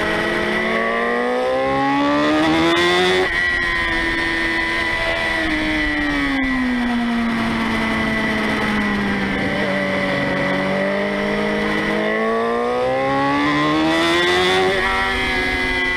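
Motorcycle engine heard from a camera mounted on the bike, revving through the gears: the pitch climbs for about three seconds and drops sharply at an upshift, sinks slowly as the rider rolls off for a bend, holds, then climbs again to another sharp upshift near the end. Wind rush and a steady high whine sit under the engine.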